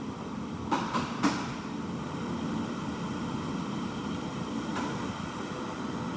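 Second-generation Acura MDX 3.7-litre V6 running, with a tapping from the valvetrain that a valve adjustment has not cured: the sign of a pitted, damaged cam lobe. A few sharper clicks stand out around a second in.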